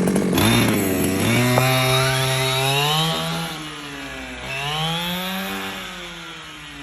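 Losi 5ive-T 2.0's small two-stroke gasoline engine during break-in, revving up and easing off twice, the note getting fainter toward the end.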